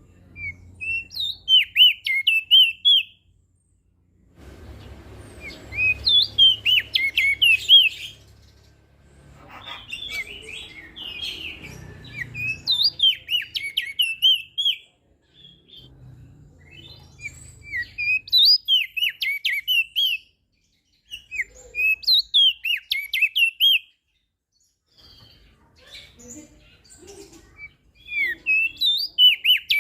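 Opior jambul, a crested white-eye, singing. It repeats fast, warbling phrases of quick sliding notes, each a few seconds long, with short pauses between them.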